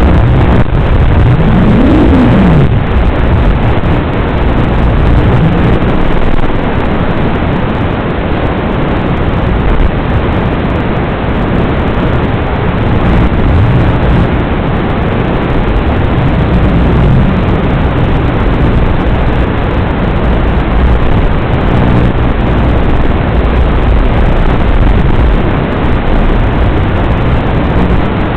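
Motors and props of a Baby Ape Pro 3-inch FPV quadcopter buzzing under a thick hiss, the pitch rising and falling with the throttle.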